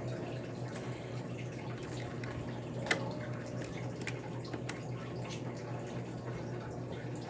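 A few faint clicks and taps of small laptop parts being handled during reassembly, the sharpest about three seconds in, over a steady low hum.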